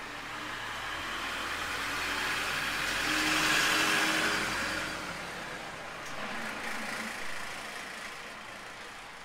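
A motor vehicle passes close by, its engine and tyre noise swelling to a peak about four seconds in and then fading away.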